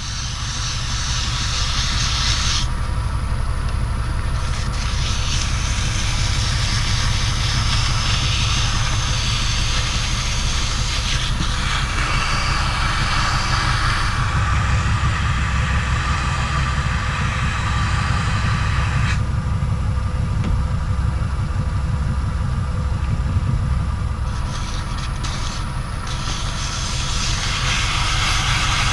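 Myford metal lathe running while a tool turns an aluminium ball handle: a steady motor hum under a cutting hiss that grows louder and fades in stretches of a few seconds as the cut changes.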